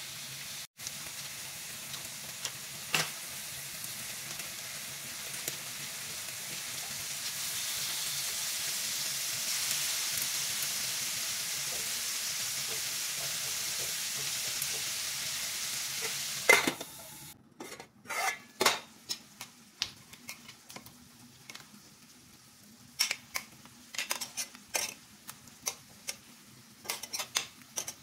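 Lamb pieces sizzling steadily in a hot stainless steel frying pan, the hiss swelling for several seconds. About two-thirds of the way through the sizzle stops abruptly, and scattered sharp clicks and taps of metal against the pan follow.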